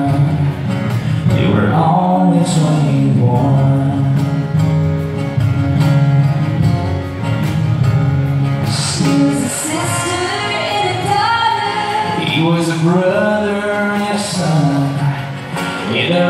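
Live acoustic country band: male and female voices singing long held notes together over acoustic guitar.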